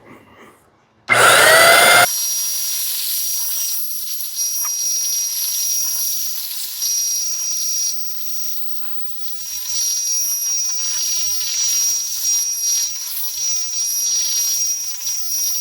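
Electric paint sprayer starting up with a rising whine about a second in, then running steadily with a hiss and a high steady whine as primer is sprayed onto metal roof panels.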